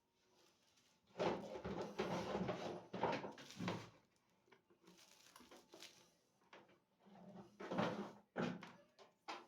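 Handling noises: irregular rustling and knocking as small objects are moved about, with a few sharp clicks near the end.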